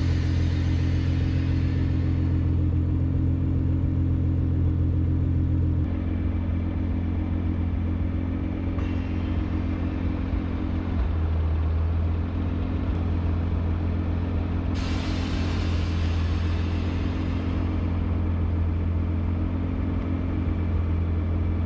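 Nissan GT-R R35's twin-turbo V6 running at a steady idle, a low even drone that shifts slightly in pitch about six and eleven seconds in.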